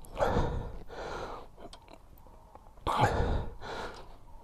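A man's breathing close to the microphone: two heavy exhalations about three seconds apart, with a few faint clicks between them.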